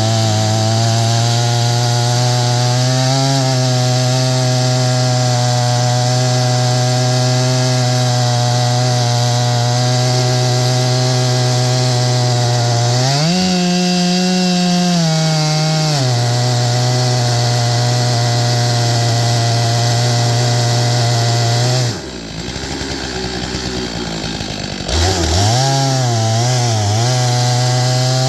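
Stihl MS661 two-stroke chainsaw on an Alaskan mill ripping a pine log, its engine running steadily under load. About halfway through the revs rise for a few seconds then settle back, and near the end the engine dips and falters for about three seconds before picking back up.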